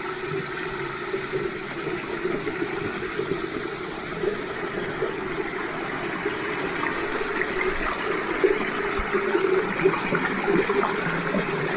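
Shallow rocky stream running and trickling over stones and small cascades, a steady rushing water sound that grows somewhat louder toward the end.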